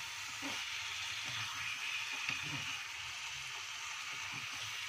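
Tofu cubes in a thick chili sauce sizzling in a nonstick wok as a wooden spatula stirs them: a steady hiss.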